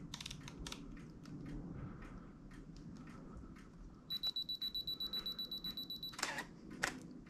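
Canon DSLR: a few button clicks in the first second. About four seconds in, a rapid high beeping runs for about two seconds, the pattern of the camera's two-second self-timer counting down. Then the shutter fires with two loud clacks.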